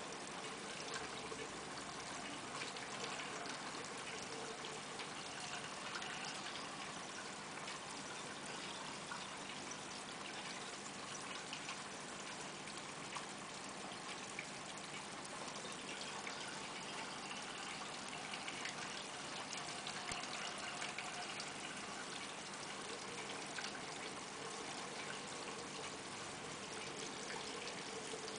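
Reef aquarium water trickling steadily from its circulation and filtration.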